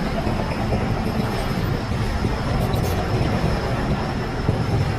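Diesel engine of a Shantui DH17C crawler bulldozer running under load with a steady low rumble and a thin, steady high whine above it.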